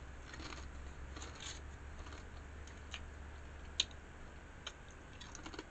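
Quiet eating sounds: faint chewing, then light scattered crackles of a paper bag of tortilla chips being handled, with one sharper click a little before four seconds in, over a low steady hum.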